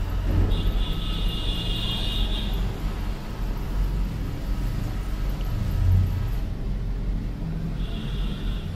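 Canon imageRUNNER 2525W copier powering up after a restart: a steady low hum of its motors and fans. A high whine comes in about half a second in and lasts about two seconds, then returns near the end.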